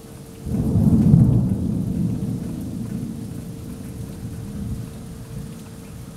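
A thunderclap breaks about half a second in and rumbles on, fading away over the next few seconds, over the steady hiss of falling rain.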